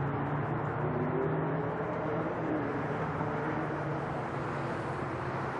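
Distant jet engines of a Boeing 767 climbing out after takeoff: a steady rumble with a few low humming tones that waver slightly in pitch.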